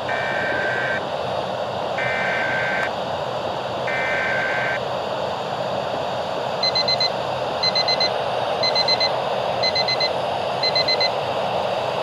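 A radio receiving an emergency alert over a steady hiss of static. First come three bursts of warbling data tones, each about a second long and a second apart, the digital header of an emergency alert (SAME) broadcast. Then, from about halfway in, clusters of quick high beeps repeat about once a second like an alarm.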